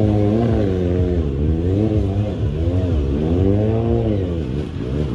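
Stunt motorcycle engine revving up and down again and again as the rider holds a wheelie, its pitch rising and falling every second or so.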